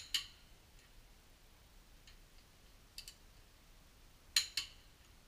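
Ratchet wrench clicking on a wheel bolt: pairs of sharp metal clicks at the start, about three seconds in and again near the end, with a few faint ticks between.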